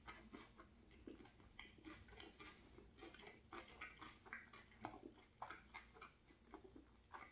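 Faint, close-miked chewing of a tuna flatbread with the mouth closed: soft, irregular wet mouth clicks and crackles.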